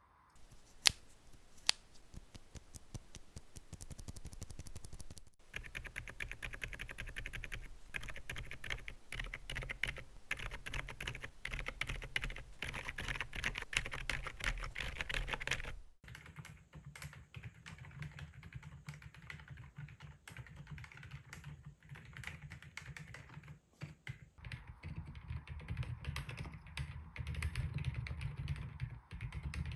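Fast, continuous typing on an AULA F87 Pro mechanical keyboard fitted with Akko low-noise (silent) Penguin switches. Two sharper clicks stand out about a second in, and the typing breaks off briefly twice, about five and sixteen seconds in.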